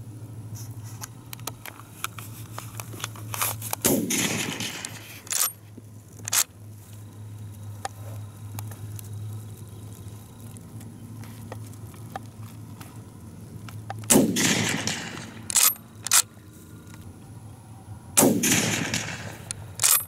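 Three rifle shots from a Schmidt-Rubin 1889 firing GP90/23 handloads: one a few seconds in and two close together near the end, each with a short echoing tail. After each shot come sharp metallic clacks as the straight-pull bolt is worked to chamber the next round.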